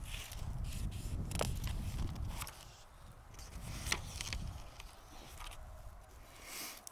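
Low rumble and rustling on the microphone, heaviest in the first two and a half seconds, with three sharp clicks.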